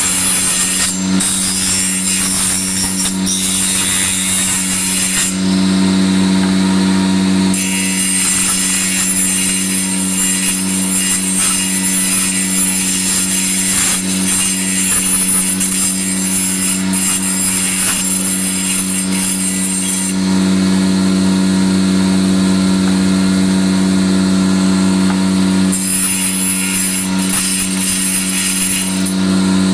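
Electric woodworking power tool running with a steady motor hum, with long stretches of hissing as it works the wood; the hissing drops out twice while the motor keeps running.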